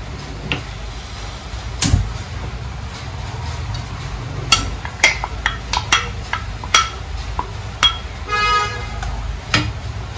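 Sharp taps and knocks of a ceramic bowl and wooden spatula against a non-stick pan as thick mango purée is scraped out, over a steady low rumble. Near the end comes a short horn-like tone lasting about half a second.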